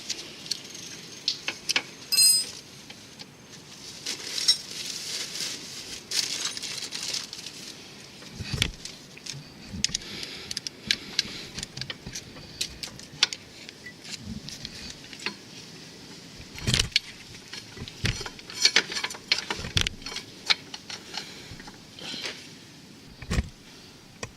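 Metal hand tools and small metal parts being handled: irregular clinking and rattling, with a ringing metal clink about two seconds in and a few dull knocks.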